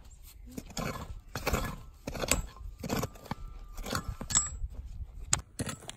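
A three-pronged hand cultivator raking and scraping through dry, stony soil in repeated strokes, roughly one every 0.7 s, with small stones rattling and clinking.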